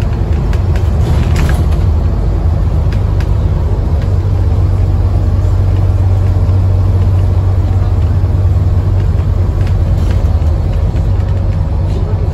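Scania N230UD Enviro 400 double-decker bus under way, heard from inside the passenger saloon: its Scania DC9 diesel engine and the road give a steady low drone and rumble, strongest through the middle.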